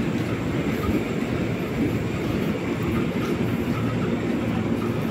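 Steady low rumble of a train beside the platform, a KRL electric commuter set being moved by locomotive, with no distinct wheel clicks.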